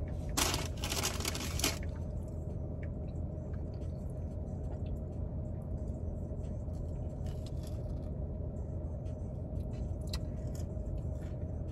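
Steady low hum inside a stationary car, from the idling engine and ventilation, with a brief rustle about half a second in and scattered soft clicks.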